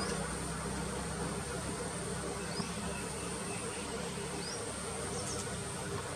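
A steady, high-pitched insect drone, with a few short, high bird chirps over it and a low hum underneath that fades out about four and a half seconds in.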